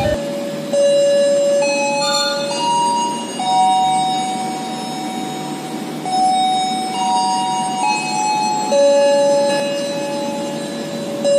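A slow melody of held, bell-like notes, stepping from pitch to pitch every second or two.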